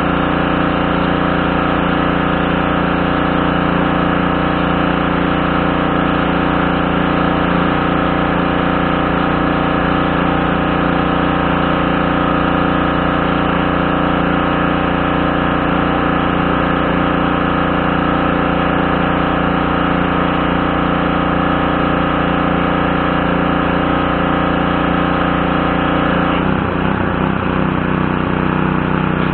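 Briggs & Stratton 550E series 140cc engine of a Craftsman pressure washer running steadily. Near the end its pitch wavers unevenly for a couple of seconds, then steadies.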